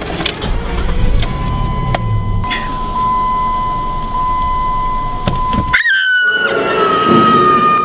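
Car keys jangling and clicking at the ignition, with a brief low engine rumble and a steady high electronic tone. About six seconds in, the sound cuts off sharply and a sustained tone begins that slides slowly downward.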